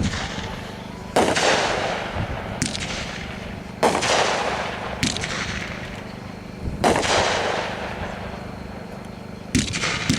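Brothers 'War Hero' 30-shot consumer fireworks cake firing. Sharp bursts come every one to three seconds, six in all, and each trails off in a long crackling fizz that fades away.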